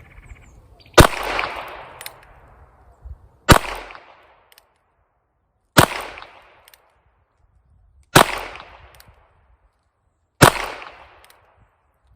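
Ruger Wrangler Birdshead single-action .22 LR revolver firing five shots about two and a half seconds apart, each a sharp crack with a short echoing tail.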